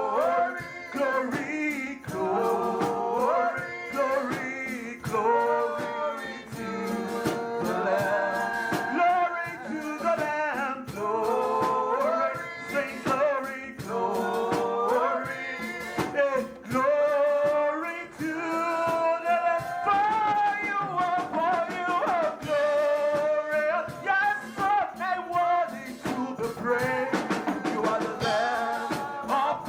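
Live church worship music: singing over a drum kit and other instruments, with a steady beat.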